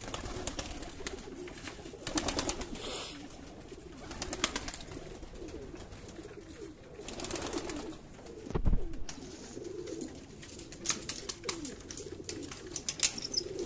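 A flock of domestic pigeons cooing continuously while they feed on scattered grain, with sharp clicks and short rustles from pecking and wing flaps. A single low thump about nine seconds in is the loudest sound.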